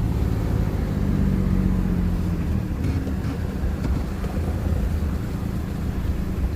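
Engine running steadily with a low rumble, like a motor vehicle or work machine idling close by.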